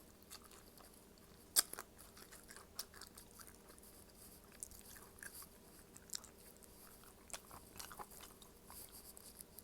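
Close-miked chewing and biting of food, with irregular wet clicks and smacks from the mouth; one sharp click about a second and a half in is the loudest.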